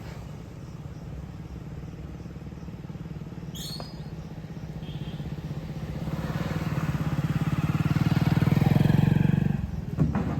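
Motorcycle engine running steadily, growing louder from about halfway through, then dropping away suddenly near the end.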